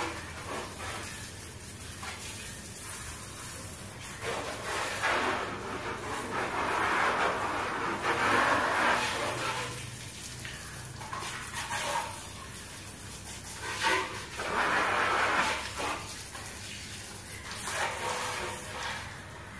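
Water jet from a plastic hose spray gun hissing and splashing onto a motorcycle, swelling louder in spells, from about five to nine seconds in and again around fourteen seconds in.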